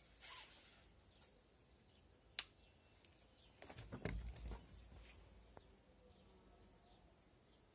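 Near silence: faint outdoor background with one sharp click about two and a half seconds in and a short spell of crackling and rustling around four seconds in.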